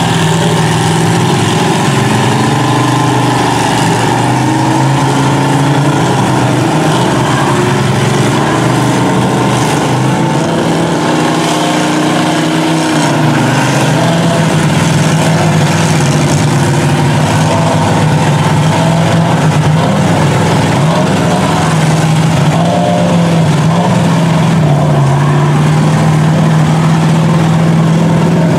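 Monster truck engines running under load as one lifted truck tows a stuck pickup out of a mud hole, the engine note rising and falling a few times as they rev.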